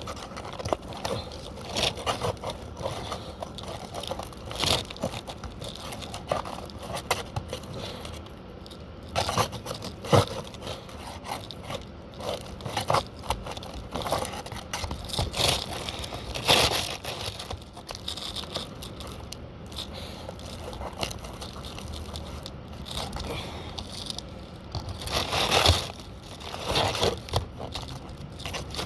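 Asphalt roof shingles being pried up with a hammer worked underneath to pull the nails: irregular scraping, crackling and tearing of the shingle material, with an occasional sharp knock.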